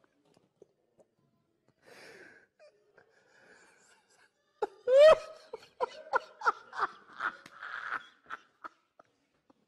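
A man laughing uncontrollably. It is almost silent for the first couple of seconds, with faint wheezy breaths. About five seconds in comes a loud, high squeal that rises in pitch, followed by a run of short laughs and gasps.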